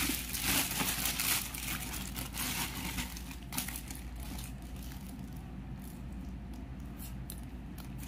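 Clear plastic bag crinkling as a climbing shoe is pulled out of it. After about three and a half seconds it gives way to quieter rustles and handling clicks.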